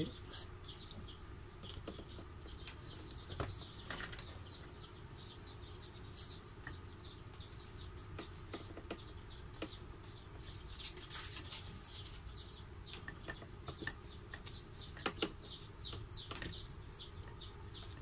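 Small birds chirping over and over in quick, short falling notes, with scattered sharp clicks from small wires and a connector being handled.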